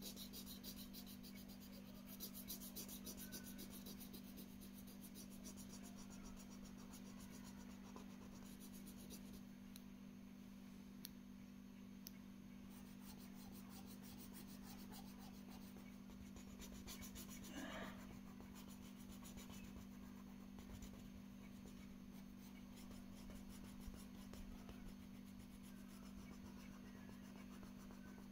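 Faint scratching of a felt-tip marker shading across paper in quick repeated strokes, over a steady low hum.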